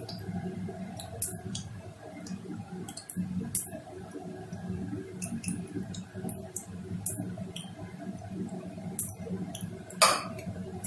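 Gulab jamun dough balls frying gently in oil in an aluminium kadai over a low flame: a soft, steady sizzle with many small scattered pops and clicks, and one louder click about ten seconds in.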